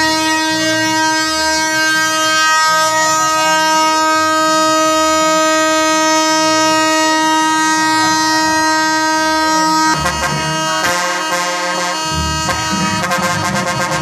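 A Scania truck's horn sounds one loud, steady note, held for about ten seconds. It then breaks into a run of short notes of changing pitch, like a tune played on a musical horn.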